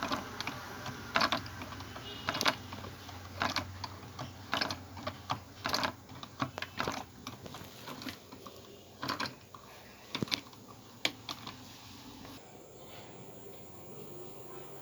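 Irregular sharp clicks and knocks from a small wave-energy model's lever and dynamo mechanism as the float moves it up and down, dying away near the end.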